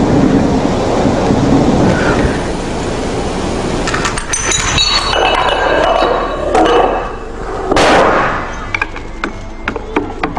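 Dominoes toppling in a chain reaction: clacks and knocks, with one loud thud about eight seconds in as a big domino lands, and a quick run of clacks near the end.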